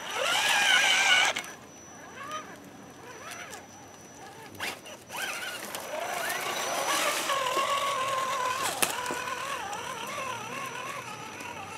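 Electric motor and gear whine of an Axial Wraith radio-controlled rock crawler, rising and falling with the throttle: loud for about the first second, dropping away as it drives off, then back and holding steadily from about six seconds in as it returns.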